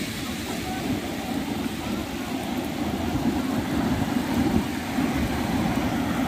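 Steady rumbling noise of sea wind and surf, buffeting the microphone.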